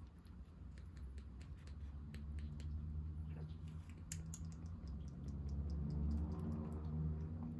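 Baby kitten suckling milk from a feeding bottle: rapid, irregular small wet clicks of its mouth and tongue on the teat, over a steady low hum.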